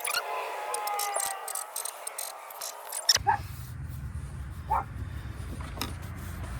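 A dog whining and yipping amid light clicks. About three seconds in, a low steady hum starts abruptly, with a few short high yelps over it.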